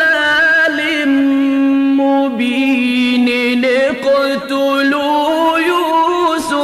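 Male Quran reciter chanting in a drawn-out melodic style, holding long ornamented notes, with one steady held tone through the middle.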